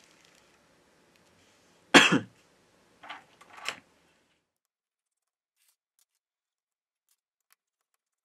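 A single sharp cough about two seconds in, followed by two fainter short sounds, then near silence with a few faint ticks.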